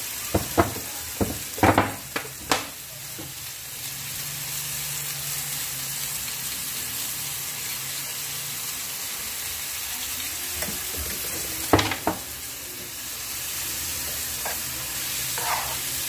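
Eggplant and red peppers sizzling in olive oil in a frying pan. A metal spoon clinks and scrapes against the pan several times in the first few seconds, and twice more about twelve seconds in.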